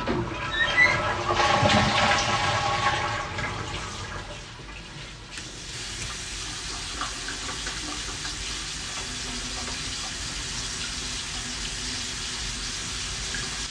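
Water running from a bathroom sink tap as hands are washed under it. It is a louder rush for the first few seconds, then settles into a steady stream.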